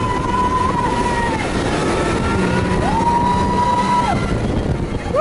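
Radiator Springs Racers ride car in motion: a steady rumble with wind noise, and held engine-like tones that drop away, come back about three seconds in, and swell again near the end.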